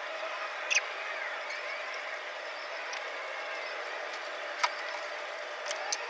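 Office room tone: a steady hum and hiss with faint wavering sounds underneath, broken by a few sharp clicks. There is one click about a second in, the loudest a little past the middle, and two more close together near the end.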